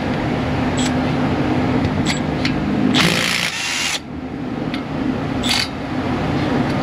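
Right-angle impact wrench loosening a front brake bolt: the motor whirs steadily, then hammers loudly for about a second around three seconds in and briefly again later.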